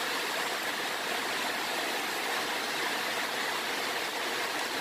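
Steady, even background hiss with no distinct knocks or clicks.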